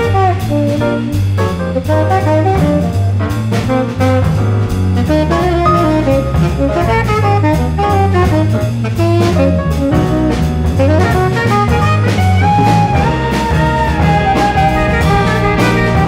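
Tenor saxophone playing a jazz solo line over a stepping bass line and a drum kit keeping time, with a rising scoop in the saxophone's pitch about eleven seconds in.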